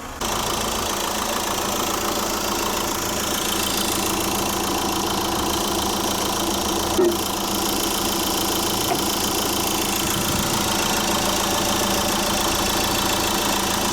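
Fiat Ducato motorhome's diesel engine idling steadily, left running after a jump start to recharge its flat starter battery. A single short knock sounds about seven seconds in.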